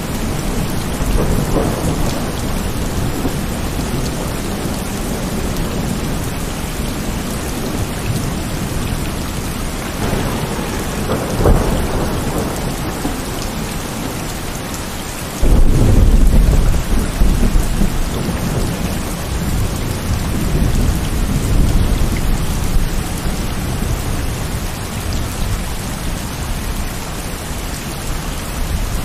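Heavy rain falling steadily through a thunderstorm, with a sharp crack of thunder about a third of the way in and a loud burst of thunder about halfway through that rumbles on and fades over several seconds.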